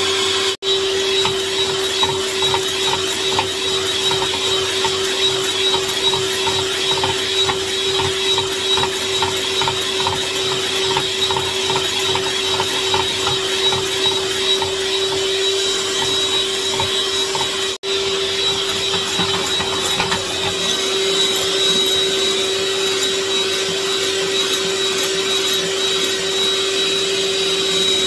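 Electric mixer running steadily at high speed, most likely whisking eggs for the sponge batter, with a constant whirr and whine. The sound breaks off for an instant twice, about half a second in and again about 18 seconds in.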